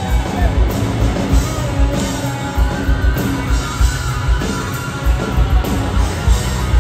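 Rock band playing live through a concert PA: electric guitar playing lead lines with bent, gliding notes over bass and a steady kick-drum beat.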